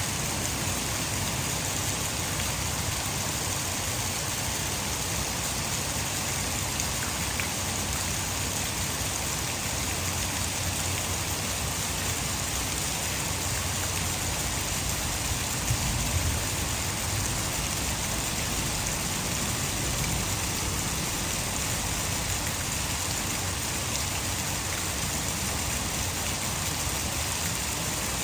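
Heavy rain falling steadily, mixed with the rush of water pouring over a hydroelectric dam. A brief low thump comes about halfway through.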